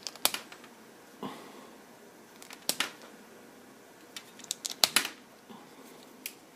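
Small cutting pliers snipping and nicking the insulation off a power-cord wire to strip it: a series of sharp clicks, several close together in the second half.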